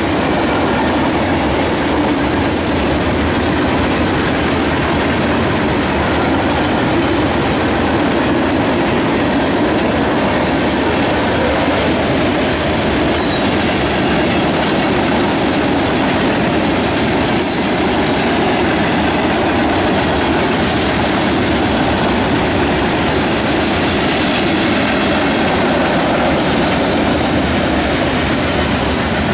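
Freight train passing: a long string of covered hopper cars rolling by close, their steel wheels making a loud, steady rumble on the rails.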